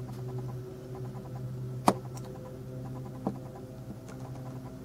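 Handling noise from close-up work on a small diecast model: one sharp click about two seconds in and a smaller one about a second and a half later, over a steady low hum.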